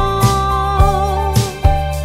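Background music with a held, gently gliding melody over a steady beat.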